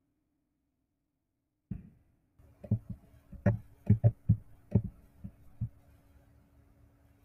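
Computer keyboard and mouse clicks picked up by the desk microphone, about a dozen dull clicks and thumps in a quick, irregular run after a near-silent first second and a half. A faint steady hum comes in a little after two seconds.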